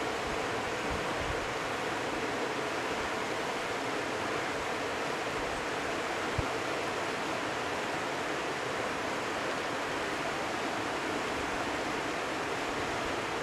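Steady outdoor rushing noise, even throughout with some low flickering rumble, and a single faint tap about six seconds in.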